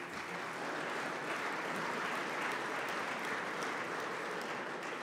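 Audience applauding, a steady wash of clapping that fades away near the end.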